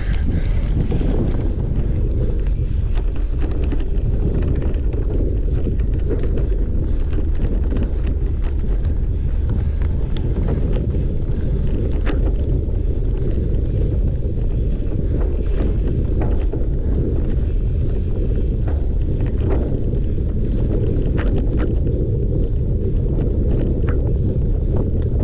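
Steady wind rumble on the microphone of a cyclocross bike's on-board camera at speed, with scattered sharp clicks and rattles from the bike over rough ground.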